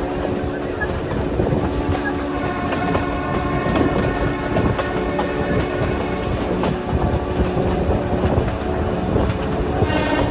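Nilgiri Mountain Railway metre-gauge train running, its wheels clicking and carriages rattling over the track with steady humming tones. Near the end comes a short, bright high-pitched tone.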